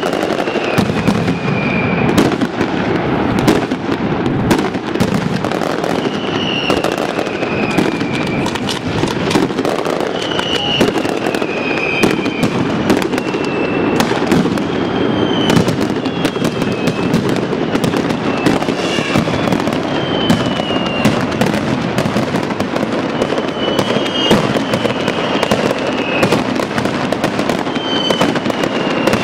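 Mascletà firecracker barrage: a dense, unbroken rattle of loud bangs from strings of firecrackers and aerial shells. High whistles from whistling fireworks glide down in pitch every couple of seconds on top of it.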